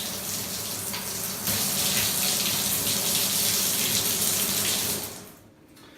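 Hand-held shower head spraying water in a steady hiss that turns louder and brighter about a second and a half in, as the select button switches it to another spray mode. The water sound falls away about five seconds in.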